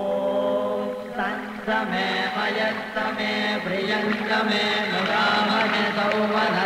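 Several voices chanting Vedic mantras together in unison, held on a steady, level pitch with only small rises and falls, as priests chant during a Hindu abhishekam ritual.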